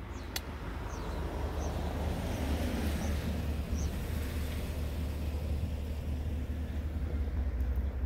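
Wind blowing across the microphone: a low rumble with a rushing noise that grows louder over the first couple of seconds and then holds.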